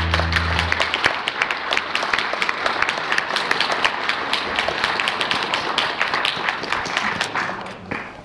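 Audience applauding after a song. The last acoustic guitar chord rings out under the clapping for about the first second, and the applause dies down near the end.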